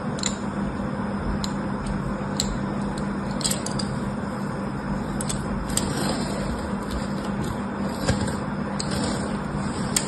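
A thin pointed tool scratching lines into a bar of dry soap, with scattered sharp little clicks and taps as soap bars are handled and set down. Under it runs a steady hiss and low hum.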